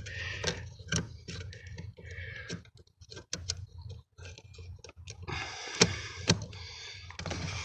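Scattered sharp plastic clicks and light rattles as the brake light switch's retaining clip is worked into the brake pedal bracket, with a short rustle of handling about five and a half seconds in.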